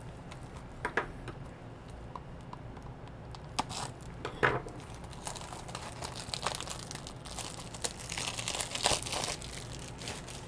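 Wrapping on a Blu-ray being crinkled and torn off by hand, with a few sharp clicks early on and a denser run of rustling in the second half.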